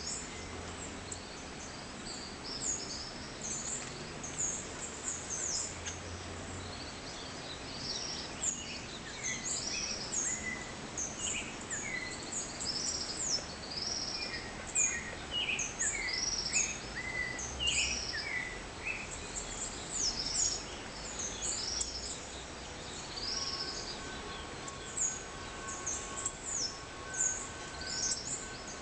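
Dawn chorus: many birds chirping and calling in short high notes, many of them sweeping downward, over a steady background hiss. A faint steady high whine joins in for the last few seconds.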